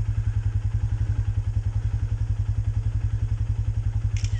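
Vehicle engine idling steadily with an even, rapid pulse of about ten beats a second. A short sharp click near the end.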